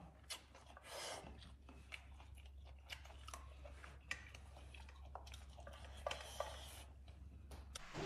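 Faint chewing, with scattered light clicks of chopsticks against a metal bowl as rice is eaten.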